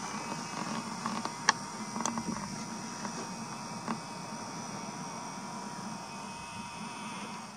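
A camera lens's zoom motor whirring as it zooms out: a thin steady whine over hiss, with a few light clicks in the first half, cutting off abruptly at the end.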